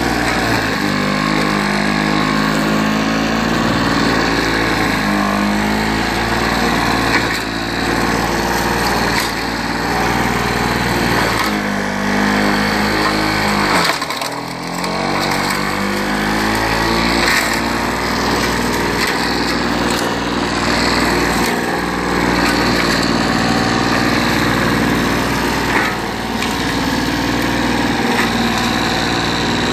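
Victa 160cc two-stroke lawnmower engine running under load as it cuts grass, its speed wavering and dipping briefly about halfway through before picking up again. The engine is not running properly, which the owner thinks may be a leaking crankshaft seal, a lean mixture or a stiff throttle butterfly shaft.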